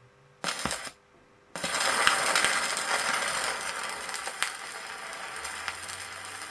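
Vinyl record surface noise: a steady hiss with scattered clicks and pops sets in about a second and a half in, after a near-silent gap broken by one short rustle.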